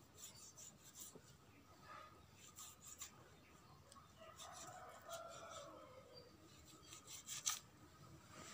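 Faint scraping of a long curved knife blade slicing raw chicken meat off a leg bone, with a few light clicks from the blade.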